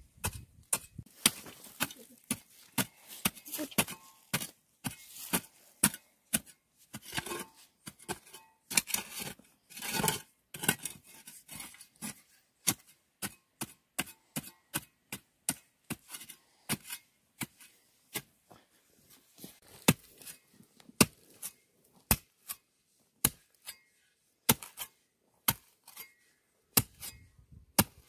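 Narrow-bladed spade chopping into hard, dry soil again and again, a sharp strike about once a second, with a denser run of scraping and strikes about ten seconds in.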